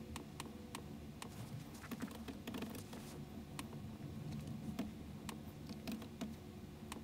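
Faint typing on a computer keyboard: irregular key clicks over a low steady hum.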